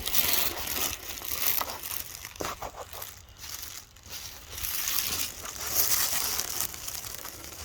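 Footsteps crunching and rustling through dry leaves and brush, in uneven bouts.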